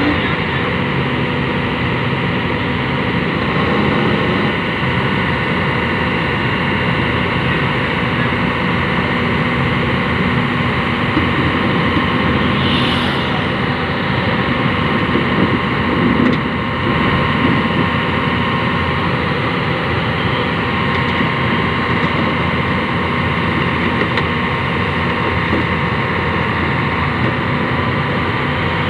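Excavator's diesel engine running steadily, with a brief swell in loudness about sixteen seconds in.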